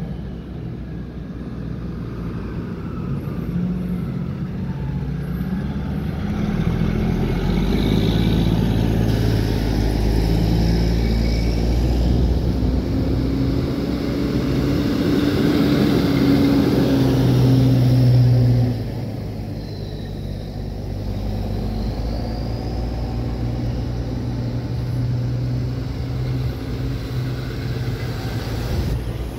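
Fire engines driving slowly past one after another, their diesel engines running with a steady low rumble that swells as each truck nears and is loudest about eighteen seconds in, then drops off sharply.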